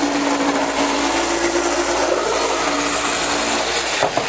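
Electric scroll saw running and cutting wood, a loud steady buzz with a hum. It cuts off near the end.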